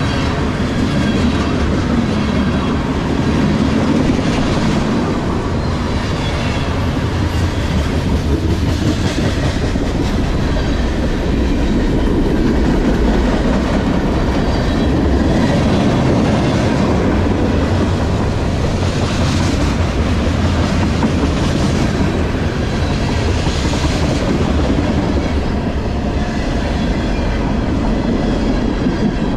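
Freight train cars, tank cars and then loaded container well cars, rolling past at close range: a steady, loud rumble of steel wheels on rail with clickety-clack clicks recurring every second or two as the wheel sets go by.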